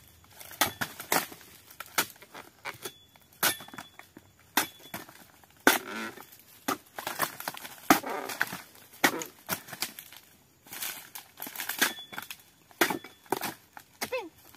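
Long-handled steel pruning chisel chopping into the fibrous frond bases of an oil palm. About one sharp chop a second, irregular, with longer crackling, tearing crunches here and there as frond stalks split away.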